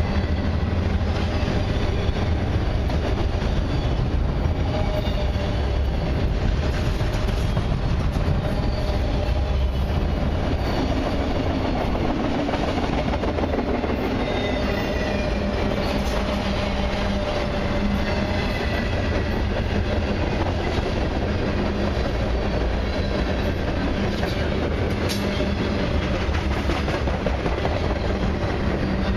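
Freight train of autorack cars rolling past close by: steady rumble of steel wheels on the rails, with faint high wheel squeals now and then.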